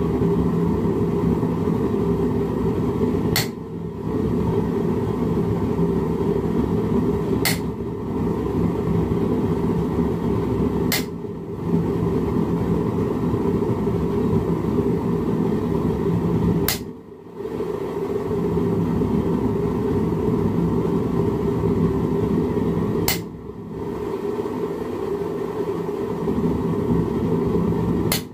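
Ball-peen hammer tapping a chisel to texture a small metal leaf on a bench vise's anvil, under a loud, steady low roar. The sound is broken by a few brief drop-outs, each starting with a sharp click.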